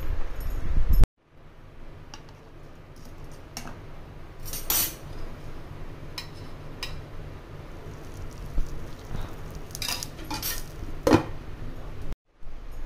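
Steel kitchenware clinking: a steel bowl and lid knocked and set down against each other several times, some strikes ringing briefly, over a steady low hum. In the first second, a loud low rumbling noise from mixing the mince, which cuts off suddenly.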